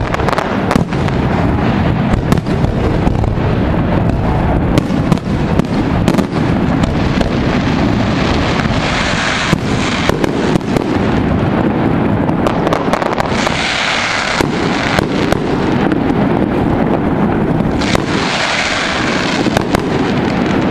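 Fireworks display: a rapid, continuous barrage of shell bursts and bangs over a constant rumble, with three stretches of high hissing laid over it partway through and near the end.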